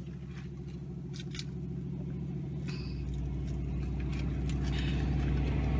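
A huge truck's engine running nearby, heard from inside a car, as a steady low note that grows steadily louder. A few faint clicks sound over it.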